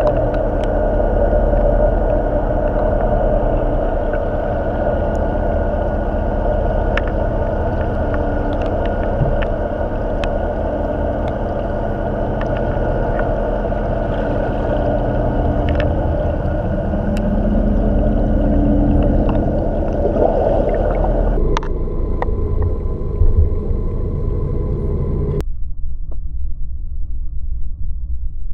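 A boat's motor running steadily, heard underwater, a steady droning hum with a few faint clicks. Its higher tones fade about three-quarters of the way through and cut out suddenly near the end, leaving a low hum.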